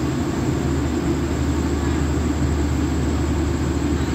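Diesel express train standing at the platform with its engine idling: a steady low hum with a thin high whine over it.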